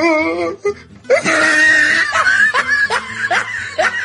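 Looping meme soundtrack: music with a voice laughing in short rising whoops over a held high note.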